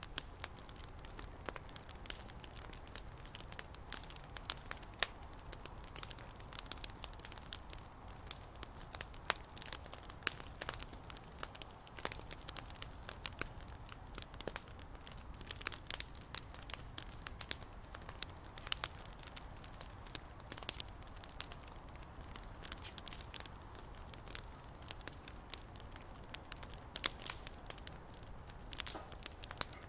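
Bonfire crackling, with frequent irregular sharp pops.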